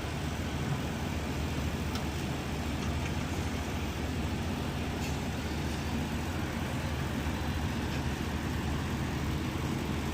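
Steady low mechanical rumble, like an engine or machine running in the shop, with a few faint clicks.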